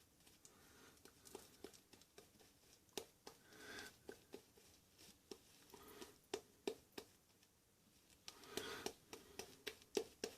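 Faint, scattered soft swishes and light clicks of a Simpson Duke 3 shaving brush working soap lather, with small taps of things being handled.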